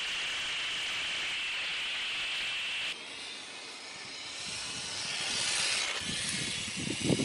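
Electric 1:10 RC car running. A steady high whine from the motor and gears sits over tyre and wind hiss, as heard from a camera riding on the car. After a cut about three seconds in, a softer hiss swells and falls away.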